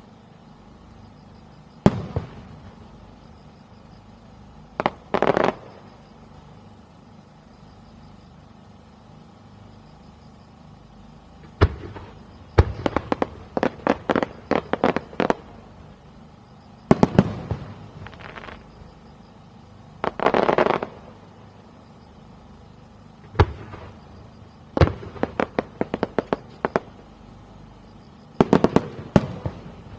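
Aerial fireworks shells bursting in a display: clusters of sharp reports in rapid succession, broken up by quieter gaps of a few seconds, with short rushes of noise at about five seconds, about twenty seconds and near the end.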